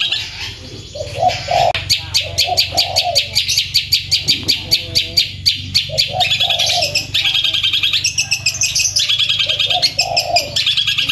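Long-tailed shrike (cendet) singing loudly and without pause, in fast rolling runs of very rapid repeated high notes, with a few rougher lower notes mixed in.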